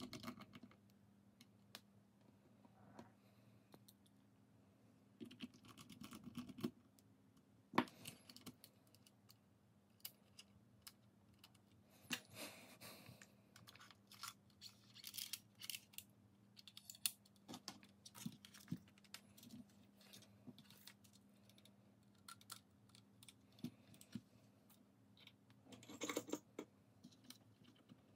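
Faint scattered clicks, taps and short scraping rustles of small parts and tools being handled, over a faint steady hum.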